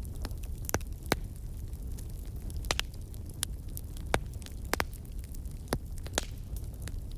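Campfire burning: wood crackling with irregular sharp pops, one or two a second, over a steady low rumble of the flames.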